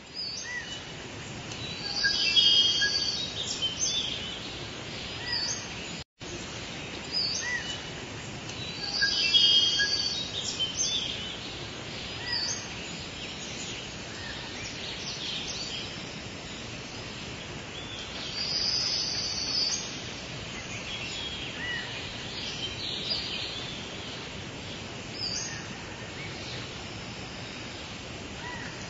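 Bursts of high-pitched chirping calls every several seconds over a steady outdoor background hiss.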